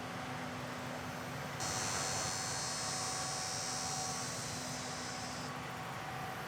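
Farm machinery running steadily in the distance, with a low hum under it. A high hiss comes in about a second and a half in and stops about four seconds later.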